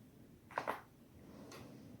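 Human joint cracking: two quick sharp pops close together about half a second in, then a fainter pop about a second later.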